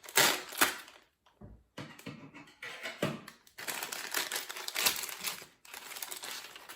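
A packet holding a new electrical socket being opened and unpacked by hand: irregular crinkling, rustling and clicking of packaging, with a burst of sharper clicks near the start and a longer run of rustling in the second half.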